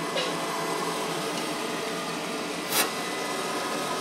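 Backpack mosquito aspirator running, its fan drawing air through the corrugated hose and nozzle in a steady hum and rush of air. A single short sharp tap about three seconds in.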